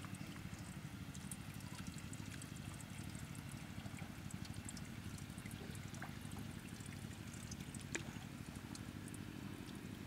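Water lapping and trickling against a small wooden boat's hull as it moves through the water, over a steady low rumble, with scattered faint ticks and one sharper knock late on.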